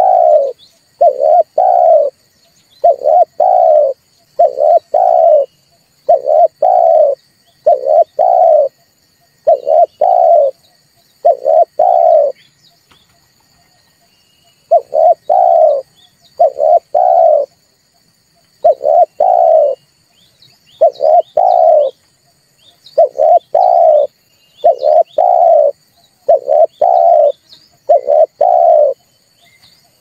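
Dove cooing: a low double coo repeated steadily about once every two seconds, with a pause of about two and a half seconds near the middle.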